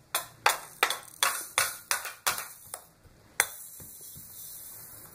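A toy train's electronic sound effect: a quick, even run of bright ringing dings, about three a second, ending in one louder ding. A steady hiss follows for the last second and a half.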